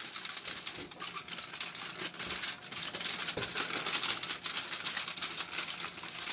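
Aluminium foil crinkling as it is folded and crimped by hand into a packet, an irregular, continuous run of small crackles.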